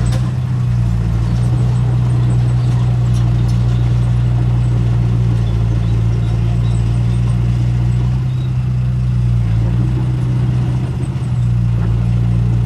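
Diesel engine of heavy earthmoving machinery running steadily with a low, even drone.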